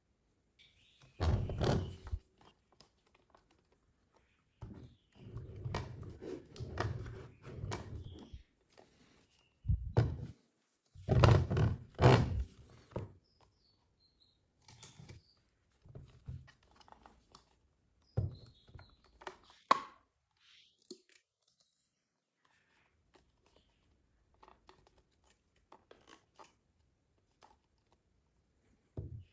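Handling noises from a mini spray fan and its packaging: irregular thunks and rustling as items are picked up and set down, with short pauses between them.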